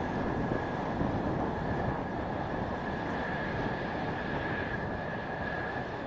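Mitsubishi F-2 fighters' General Electric F110 turbofan engines running at taxi power: a steady jet rush with a steady high-pitched whine over it.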